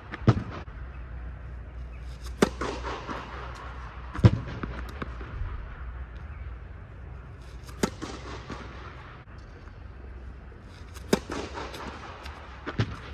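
Tennis racket striking balls on serves, sharp pops that echo under the dome of an indoor court, about six strong hits with the loudest about four seconds in. A steady low hum runs underneath.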